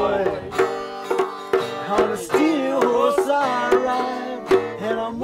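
Instrumental music: plucked strings with bending, sliding notes over light percussion.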